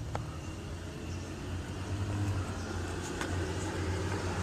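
Car engine running steadily with a low hum, with a sharp click just after the start and another about three seconds in.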